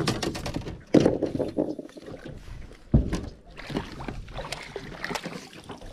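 Knocks, thumps and clicks of handling: heavier thumps at the start, about a second in and about three seconds in, with lighter knocks between.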